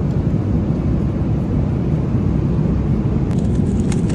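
Steady low roar of an airliner cabin in flight: engine and airflow noise, with a few faint clicks near the end.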